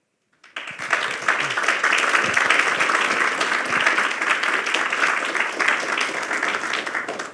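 Audience applauding, starting about half a second in, holding steady and easing off slightly near the end.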